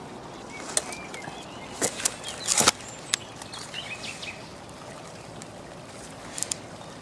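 Hands kneading damp groundbait in a plastic bucket, with a few sharp clicks and knocks as the mix is worked. Small birds chirp faintly in the background.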